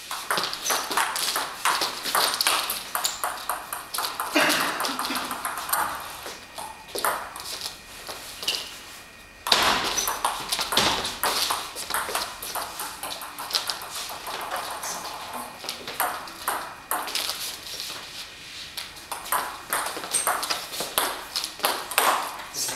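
Table tennis rallies: the ball clicking back and forth off the bats and the Stiga table in quick runs of strokes, with short pauses between points. One sharper, louder hit comes about halfway through.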